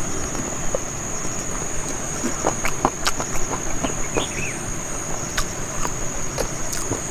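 Close-up mouth sounds of eating with the fingers: wet smacks, sucking and chewing on a piece of curried chicken on the bone, in a string of short irregular clicks. Behind them, a steady high-pitched insect drone.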